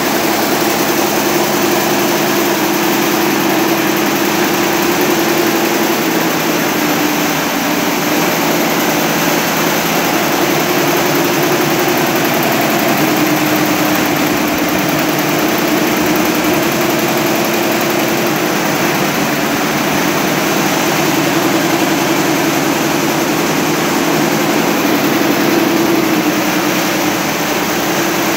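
Richpeace 166 multi-head quilting and embroidery machine running, its row of needle heads stitching leather. A loud, steady mechanical noise with a constant low hum.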